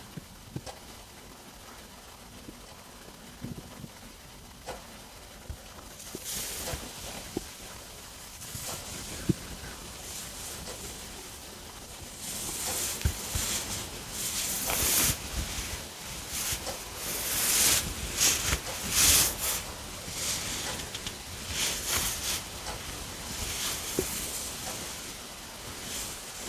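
Human stomach rumbling while digesting a meal. Faint clicks and pops at first, then from about six seconds in irregular hissing gurgles that grow louder and come more often in the second half.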